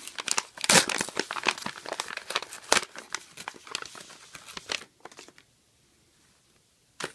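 Paper packaging crinkling and tearing as it is unwrapped by hand: a paper strip torn, then a paper bag and tissue paper rustled and crumpled in dense crackles. The rustling stops about five seconds in, with one sharp crinkle near the end.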